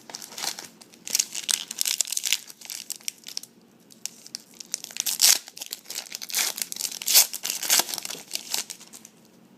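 Upper Deck football card pack wrapper being torn open and crinkled: a dense run of sharp, irregular crackles and rustles.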